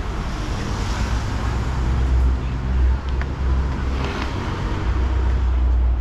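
Road traffic: a motor vehicle's engine passing close by, over a steady low rumble of wind on the microphone.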